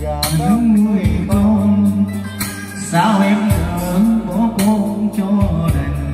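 Karaoke song playing loud through a cart-mounted loudspeaker system: a wavering melody line over a steady bass backing.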